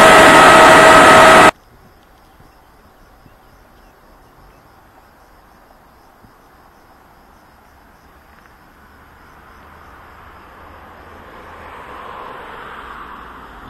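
E464 electric locomotive passing close, loud, with several steady whining tones over the rumble, cut off abruptly about a second and a half in. Then quiet platform ambience with faint, regular insect chirping, and a distant noise that slowly swells in the last few seconds.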